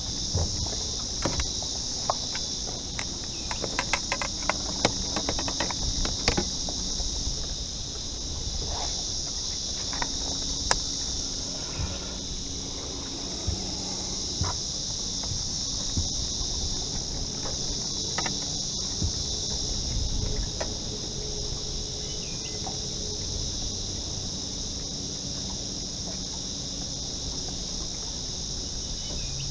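A steady, shrill chorus of insects buzzing without a break, with a quick run of sharp clicks and knocks in the first several seconds.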